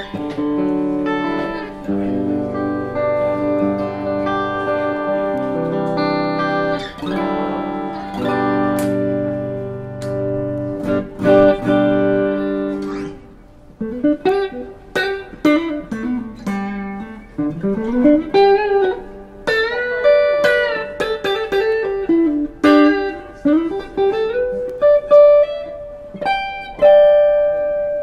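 PRS DGT electric guitar played through a Mesa Rectoverb 25 combo amp: held, ringing chords for about the first half, then a single-note lead line with string bends.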